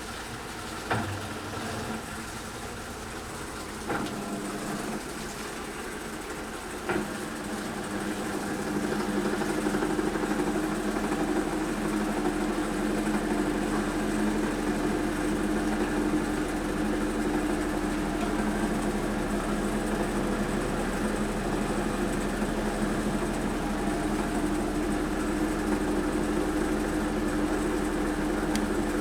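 Washing machine going into its spin cycle: a few sharp clicks, then about seven seconds in the drum motor spins up into a steady hum that holds.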